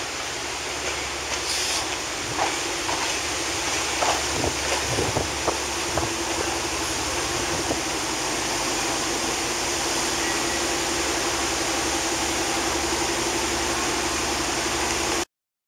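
Lxd2 narrow-gauge diesel locomotive hauling a train slowly towards the listener: a steady engine drone that firms up about halfway through, with a scatter of clicks and knocks from the wheels on the track a few seconds in, over a steady hiss of wind noise. It cuts off suddenly near the end.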